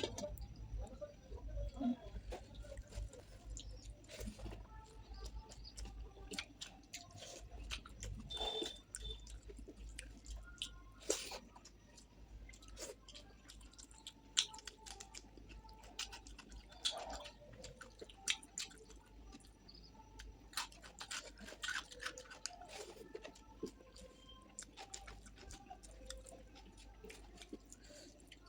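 A person chewing a mouthful of rice and curry, with many short, wet mouth clicks scattered throughout.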